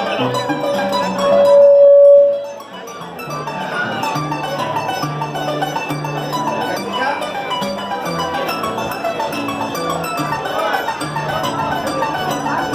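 Mariachi music with harp: quick plucked harp and string notes over a repeating bass line. One long held note sounds loudest from about a second in, then the plucked ensemble carries on.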